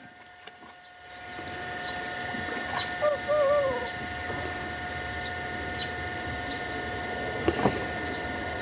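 Goose giving two short, soft wavering calls about three seconds in, over a steady background with scattered light clicks and a sharper knock near the end.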